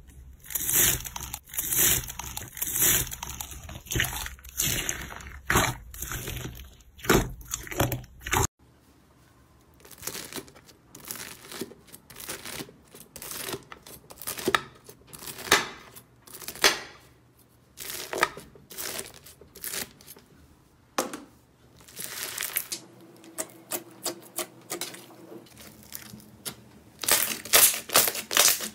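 Crunchy foam-bead slime crackling densely as a hand presses into a bowl of white foam beads. After a cut, a knife slices through a pear shape coated in tiny beads, in crisp crunches about a second apart. Near the end, glossy red slime crackles and pops loudly as a hand squeezes it.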